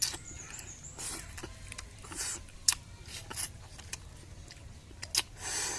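Irregular sharp clicks and short crackly, crunchy bursts from eating and handling fresh fruit, scattered a few to a second.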